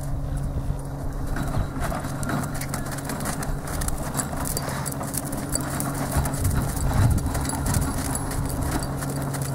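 A horse trotting on a sand arena: soft, irregular hoofbeats with small knocks and jingles of tack. A steady low hum runs underneath.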